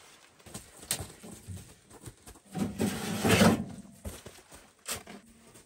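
Scattered light knocks and clicks from gear being handled, with a louder scraping rustle about halfway through.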